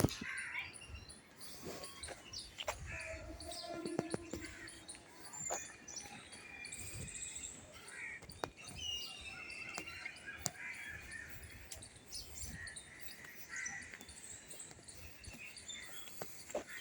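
Birds chirping and calling, many short scattered notes over faint outdoor ambience, with a few sharp clicks or knocks in between.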